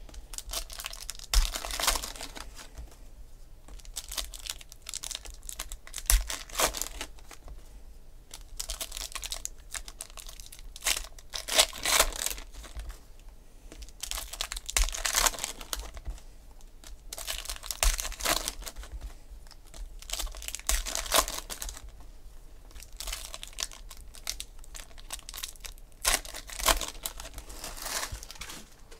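Foil trading-card packs being torn open and their wrappers crinkled, in repeated short bursts every few seconds.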